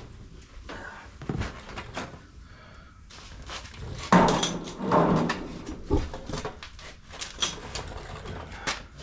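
Irregular knocks, bumps and clatter of objects being handled and moved about, the loudest thump about four seconds in.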